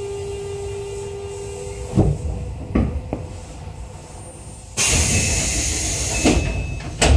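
Keio 7000 series commuter train coming to a stop, heard from inside the car: a steady whine from the running gear cuts out about two seconds in, followed by a few clunks as the car settles. About five seconds in the doors slide open with a loud hiss of air, ending in a thud.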